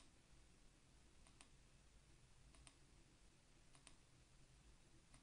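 Faint computer mouse clicks, a few spaced about a second apart and some in quick pairs, over near silence.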